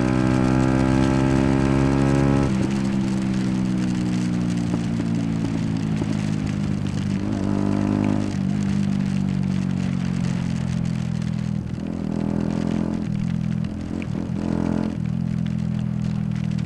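Yamaha YZF-R125's single-cylinder four-stroke engine under way on the road: the revs climb for about two and a half seconds, drop sharply at an upshift, then sink slowly. In the second half there are several brief dips and pick-ups in the revs.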